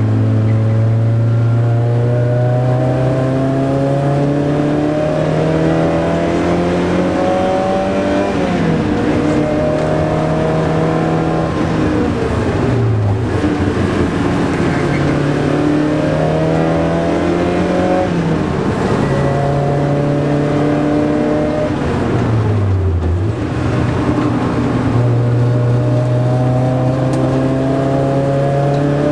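Porsche 924's four-cylinder engine heard from inside the cabin while racing on a circuit, running hard under load. Its pitch climbs slowly along each stretch and falls back sharply about five times, at gear changes and lifts for corners.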